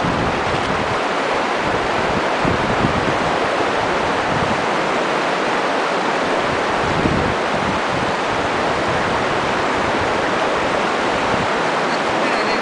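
Fast, shallow river rushing over a rocky bed, a steady hiss of running water, with wind buffeting the microphone in a few low gusts.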